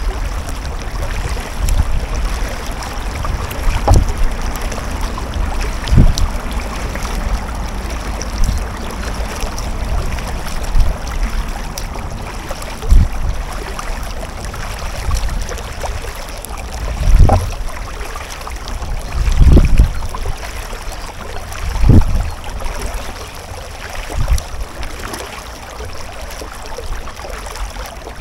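Kayak being paddled on a river: water sounds and a low thump every two to three seconds, more irregular later, over a steady rumble of wind on the microphone.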